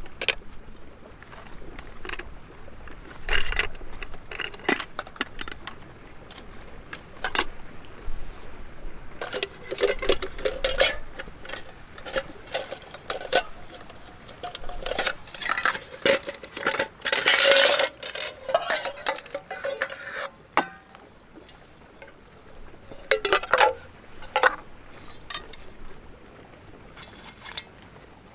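Aluminium pots, lids and pan of a Trangia cook set clanking, clinking and scraping against each other as they are taken apart and set down, with short metallic rings and one longer scrape about two-thirds of the way in.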